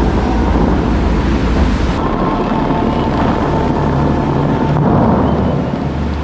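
Dubai Fountain's water jets shooting and splashing close by, a loud, steady rush, with wind buffeting the microphone.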